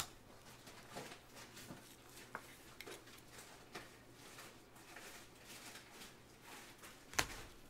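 Faint rustling and light ticks of gloved hands handling trading cards and a clear plastic card holder, with one sharp click near the end.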